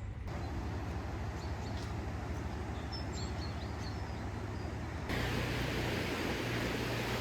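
Strong wind buffeting the microphone outdoors, a steady rumbling hiss that changes abruptly about five seconds in, turning louder and hissier.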